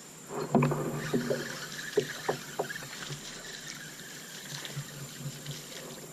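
Knocking and clattering on a kayak, with a handful of sharp knocks in the first three seconds and a quieter stretch after.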